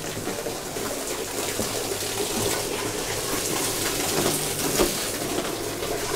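Spring water pouring in a steady stream into an ice-crusted plunge pool. It grows gradually louder.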